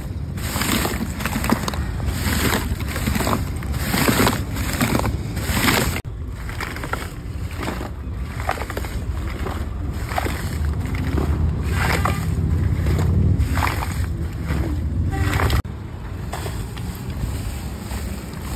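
Ice chunks and icy water sloshing and knocking inside a metal tin as the kulfi moulds are rocked by hand to freeze the kulfi, at first in a steady rhythm of about two strokes a second, later slower and more irregular.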